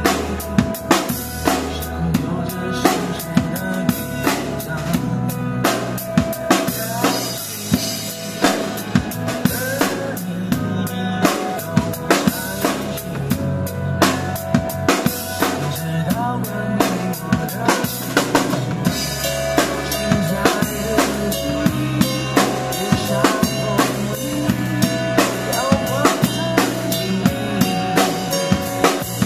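Yamaha drum kit played with sticks in a steady groove, kick drum, snare and cymbals, over recorded backing music with sustained pitched tones.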